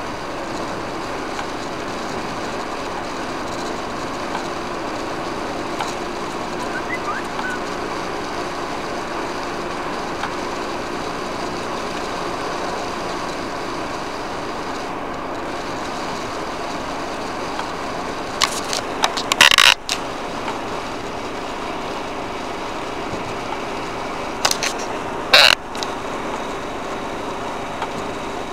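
Steady tyre and engine noise heard inside a car's cabin at about 120 km/h on a wet motorway. About two-thirds of the way through come two short, loud hissing swishes, about six seconds apart.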